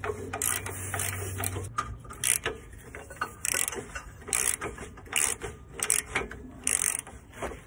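Socket ratchet clicking in short bursts on each back-swing as a lower control arm bolt that has just broken loose is run out.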